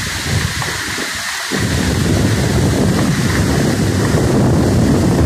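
Muddy floodwater rushing and pouring down a hillside in waterfalls, a steady wash of water noise with wind on the microphone, growing louder about a second and a half in.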